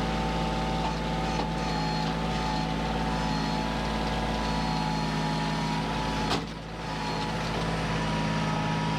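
Kioti CK2610 compact tractor's diesel engine running steadily under load while lifting a log with the grapple on a steep hill, the rear wheels spinning for lack of weight. A single sharp knock about six seconds in, followed by a brief dip in the engine sound.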